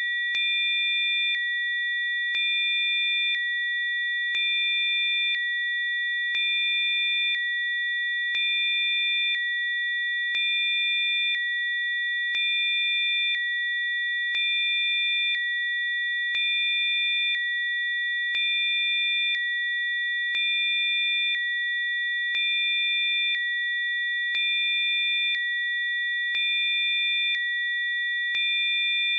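Several synthesized pure sine tones held together as a steady high-pitched chord, in a designed 'healing frequency' track. Fainter tones switch on and off about once a second, giving a slight regular pulse in loudness.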